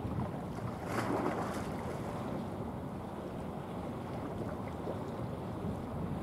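Wind buffeting the microphone over a steady wash of sea noise, with a stronger gust about a second in.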